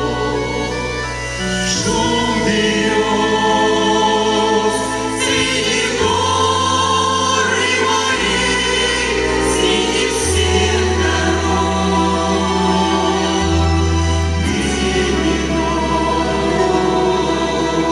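Vocal ensemble singing a Russian song in parts over instrumental accompaniment, with a sustained bass line that changes note every couple of seconds.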